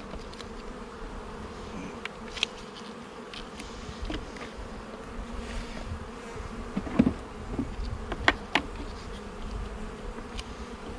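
Honeybee colony humming steadily in an open hive, with a few sharp clicks and knocks, the loudest a little past the middle.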